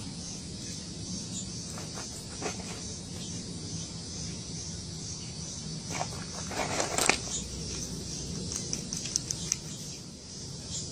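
In-shell peanuts rustling and clicking against a plastic bowl as a chipmunk digs into it, loudest about six to seven seconds in, with a few sharp clicks a couple of seconds later. A steady high insect drone runs underneath.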